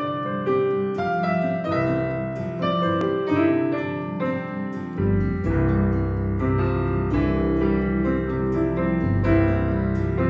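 Piano sound from a digital keyboard playing a slow song's instrumental intro: chords and a melody, with deep low notes joining about halfway through.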